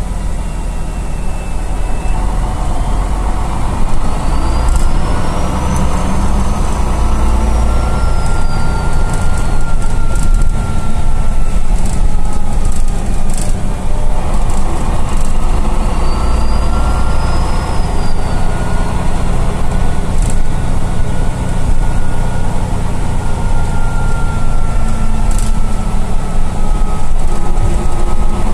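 Diesel engine of a MAN NL263 city bus heard from inside the passenger cabin while under way: a low rumble, with the engine note and a high whine rising and falling twice as the bus accelerates and then eases off.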